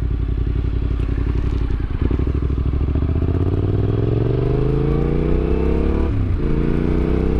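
Yamaha Ténéré 700's parallel-twin engine under a riding motorcycle, pulling steadily at first and then accelerating with its pitch climbing. It drops briefly for an upshift about six seconds in, then climbs again.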